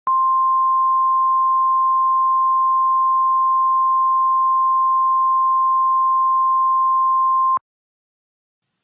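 Emergency alert warning tone: a single steady high beep just above 1 kHz, the NOAA Weather Radio-style 1050 Hz alarm. It holds for about seven and a half seconds, then cuts off abruptly. It signals that an urgent warning message is about to be broadcast.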